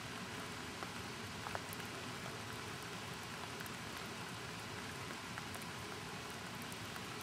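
Steady hiss of rain, with scattered faint ticks of drops and a small click about a second and a half in.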